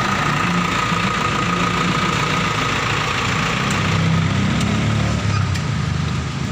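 Fire truck's diesel engine idling steadily, heard from inside the cab, with a thin steady whine over the low rumble.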